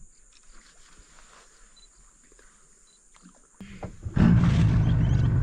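A pirogue's outboard motor starts about four seconds in and settles into a loud, steady run. Before that it is quiet, with only a few faint ticks.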